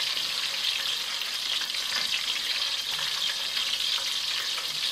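Battered apple rings deep-frying in hot fat in a stainless steel pot: a steady sizzle.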